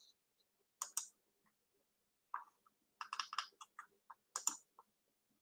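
Faint clicking and tapping of a computer keyboard and mouse: a pair of clicks about a second in, then a quick run of taps from about three seconds in.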